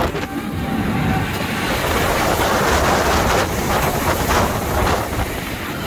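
X2 roller coaster train running along its steel track, a steady loud rumble and rattle of wheels on rail mixed with rushing air.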